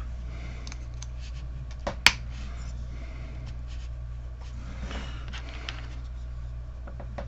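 Small plastic model kit parts being handled and fitted, with scattered faint clicks and one sharp plastic snap about two seconds in. A steady low hum runs underneath.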